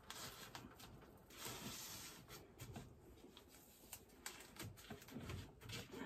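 Faint rustling and light taps of hands pressing and smoothing tape over an insulating pad on the side of a fermenter.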